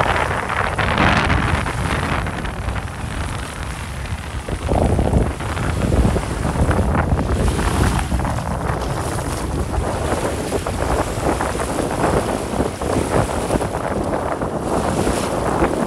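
Wind buffeting the microphone, with small waves lapping on a sandy shore underneath.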